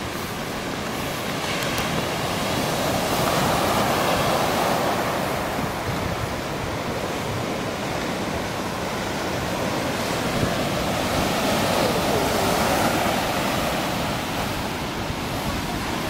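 Sea waves breaking on a sandy beach: a continuous rushing wash of surf that swells louder twice, around four seconds in and again around twelve seconds.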